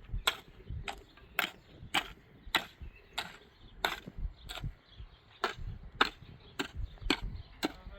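Repeated sharp blows of a hand tool, about two a second in a steady rhythm, like chopping or hammering.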